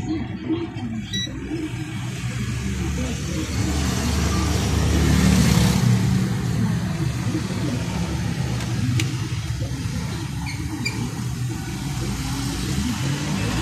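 A motor vehicle's engine rumbling low and steady, growing louder to a peak about five seconds in and then easing off.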